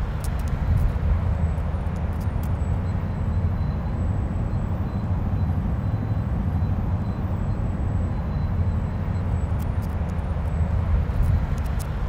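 Steady low outdoor rumble, wavering slightly in loudness, with no distinct events.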